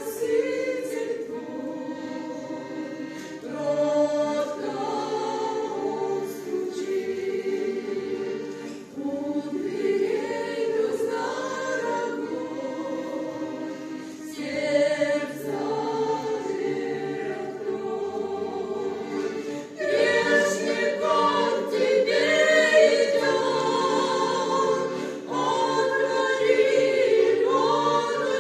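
Choir singing a Christian hymn in sustained chords, with a new phrase beginning about every five seconds.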